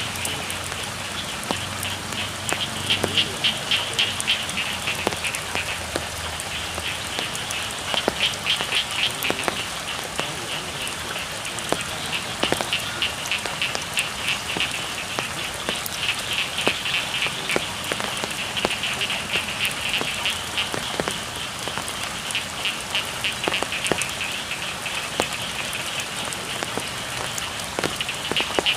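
Steady rain falling, with scattered drips, under a chorus of frogs calling in rapid pulsing trills that come in bouts every few seconds.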